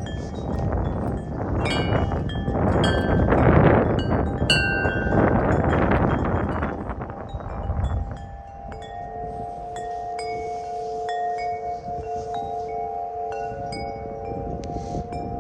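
Wind chimes ringing in gusty wind, with wind buffeting the microphone. About eight seconds in the gust dies down, and several deep chime tones ring on steadily under light, higher-pitched strikes.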